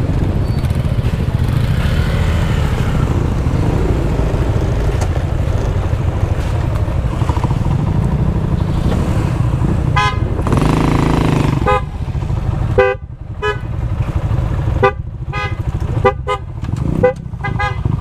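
Motor scooter engine running with road and wind noise on a rough dirt track, then dropping away about twelve seconds in as it pulls off and stops. Several short horn toots sound over the last few seconds.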